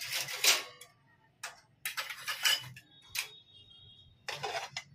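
Stainless-steel kitchen utensils clinking and clattering as they are set down and stacked on a shelf: about five separate knocks, one with a brief metallic ring.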